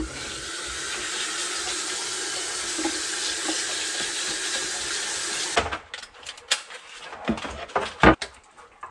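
Kitchen faucet's pull-down sprayer running water onto catfish in a sink for about five and a half seconds, then shut off abruptly. A few scattered knocks and clunks follow, one louder near the end.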